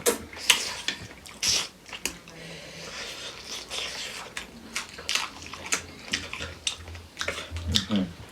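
Close-up wet chewing, biting and sucking at soft, pressure-cooked chicken feet: irregular smacks and clicks with no steady rhythm.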